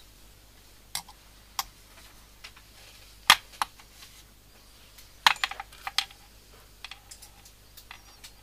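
Scattered sharp clicks and taps of small fly-tying tools handled at the vise. The loudest click comes a little over three seconds in, and a quick cluster follows about five to six seconds in.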